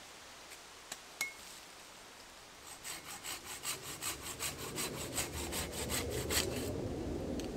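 Hand saw cutting through wood: a quick, even run of rasping strokes, about five a second, that starts about three seconds in and stops near the end. Beneath it a low rumbling noise builds from about four seconds in.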